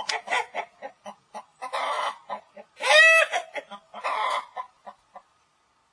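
A chicken clucking: a run of short clucks broken by several louder squawks, the loudest a pitched, arching squawk about three seconds in. It stops a little after five seconds.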